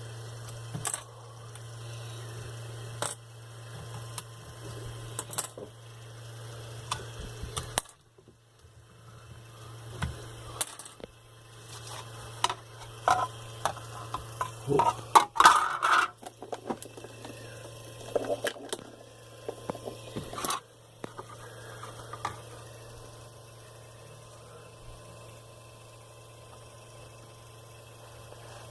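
Scattered clicks and clatter of hard objects being handled, busiest in the middle, over a steady low hum.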